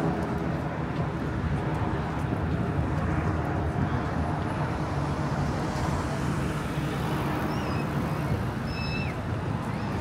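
Steady rumble of road traffic, car engines and tyres passing close by on a city bridge road, with a few faint short high chirps near the end.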